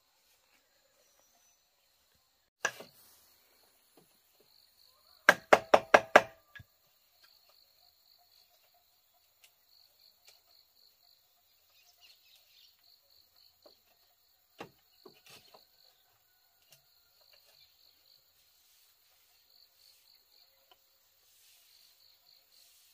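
A single sharp knock, then a quick run of six sharp knocks about two seconds later, and two fainter knocks further on. Behind them an insect chirrs steadily in a fast, pulsing high pitch.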